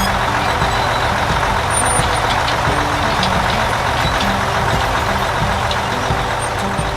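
Heavy truck engine running steadily with a dense rumble, as a cartoon sound effect.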